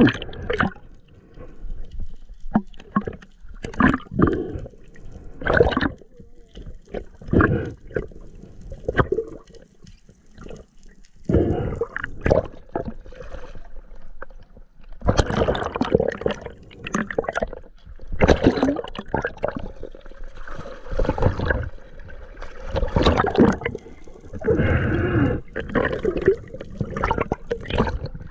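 Water sloshing and gurgling against a GoPro's waterproof housing as a freediver swims up and bobs at the sea surface, in irregular bursts of splashing that grow louder and longer in the second half.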